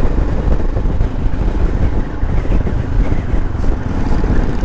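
Wind rushing over the microphone while riding, with the Royal Enfield Himalayan's 411 cc single-cylinder, air-cooled engine running underneath as a steady low rumble.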